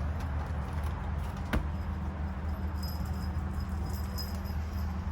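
Faint jingling of a puppy's collar, with one sharp click about a second and a half in, over a steady low hum.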